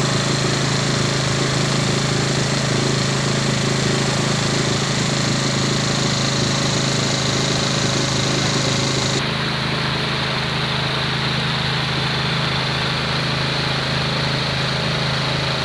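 A small motorboat's engine runs steadily under way, mixed with the hiss of heavy rain on the water and the boat's canopy. The engine note shifts and the hiss turns duller about nine seconds in.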